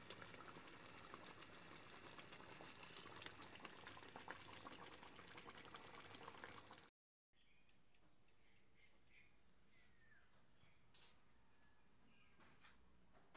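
Thick coconut-milk chicken stew simmering in a pan, its sauce bubbling with a dense crackle of small pops. After a sudden cut about seven seconds in, this gives way to a faint, steady, high-pitched chirring of insects.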